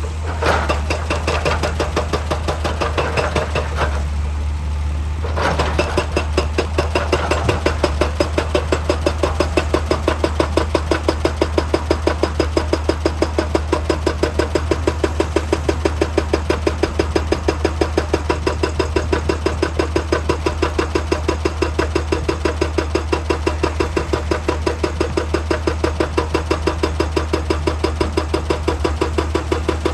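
Heavy hydraulic excavator working: a fast, very even pounding over the steady drone of its diesel engine, with a short lull about four seconds in before the pounding settles into its rhythm.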